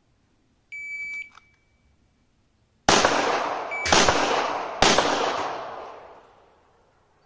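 A shot timer's electronic start beep, then three pistol shots about a second apart, each ringing out in a long reverberant tail.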